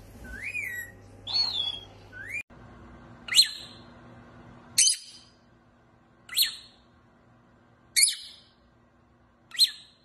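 An Indian ringneck parakeet gives short whistled calls that rise and fall. After a cut, a peach-faced lovebird gives five sharp, high chirps about a second and a half apart.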